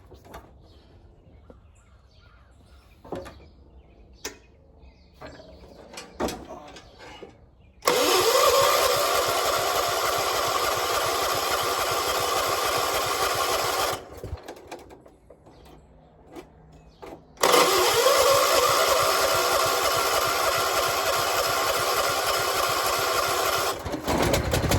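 1976 John Deere 300 lawn tractor's Kohler twin-cylinder engine being cranked by the starter in two long attempts of about six seconds each, with clicks before and between them; it is hard to start and won't fire despite having fuel. Near the end the sound drops lower and heavier as the engine begins to catch.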